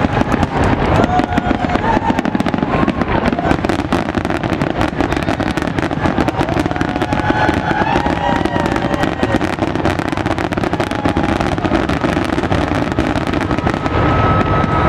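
Fireworks display: aerial shells bursting and crackling in rapid, continuous succession, many bangs a second, growing a little louder near the end.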